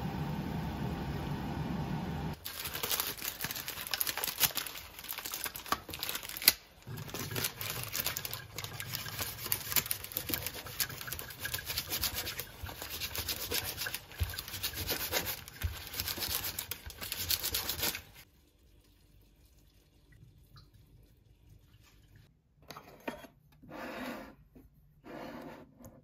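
A chef's knife slicing through a seared steak on parchment paper, with repeated cutting strokes, scraping and paper crinkling and many sharp clicks. Before it, for about two seconds, there is a steady sound that fits an onion sauce simmering in a frying pan. The slicing stops abruptly about two-thirds of the way through, leaving near quiet with a few faint clinks.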